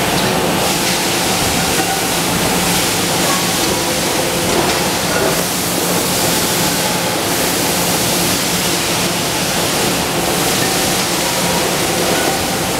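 Steady, loud running noise of an aluminum cookware production line: the conveyor belt and press machinery give a constant noise with a faint steady hum in it.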